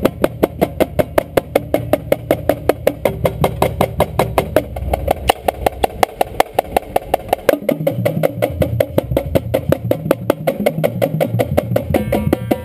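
Marching drumline playing a warm-up exercise: Yamaha marching snare drums and tenor drums struck in quick, even strokes. About halfway through, lower drum notes stepping between pitches join in.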